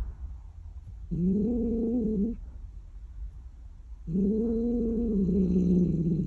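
Injured calico cat giving two low, drawn-out moaning growls, the second one longer; a warning that the owner takes to mean 'don't come near me, it hurts right now.'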